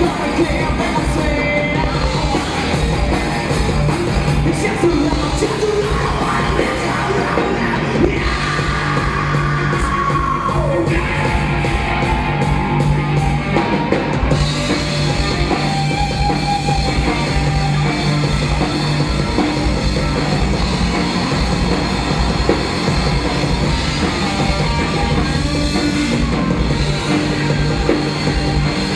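Live rock band playing loudly: electric guitars, bass guitar and drum kit, with a woman singing over them.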